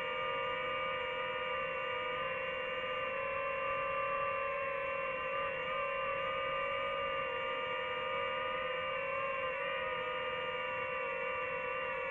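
DJI FPV drone's motors and propellers running: a steady whining hum made of several tones that waver slightly in pitch, with no break.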